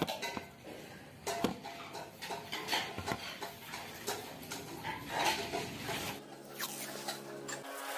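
Light metallic knocks and clatter of a painted square steel tube being handled and set down on a sheet-metal table, with small handling clicks.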